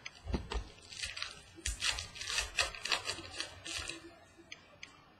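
Trading cards being flipped through and set down by hand: a quick run of light clicks and flicks from the card edges, trailing off after about four seconds.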